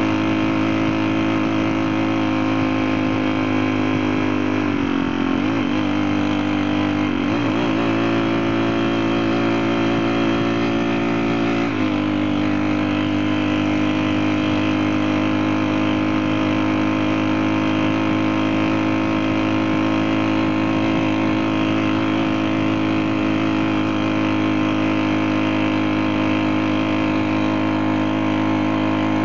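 Small 35 cc four-stroke engine of a lightweight motorcycle running steadily. Its pitch wavers about five seconds in, holds a little higher until about twelve seconds, then settles back to a steady, even note.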